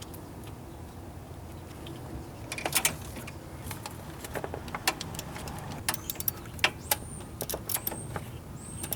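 Irregular light metallic clicks and taps of tools and hardware being handled during starter installation, starting about two and a half seconds in.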